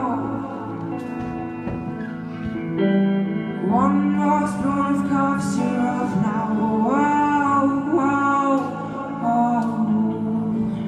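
A teenage boy singing long, held wordless notes that swoop upward into each note, over steady instrumental accompaniment, as a song closes.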